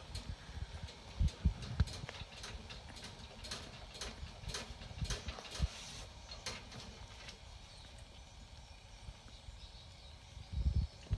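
Scattered small clicks and a few soft low thumps, busiest in the first half and thinning out, with a burst of low thumps near the end. These are handling and rustling sounds close to a pile of sleeping newborn puppies in a plastic tub.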